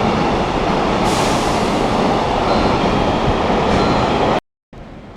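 JR container freight train passing close by, a loud steady rumble of wagons and wheels on the rails. It cuts off abruptly about four seconds in.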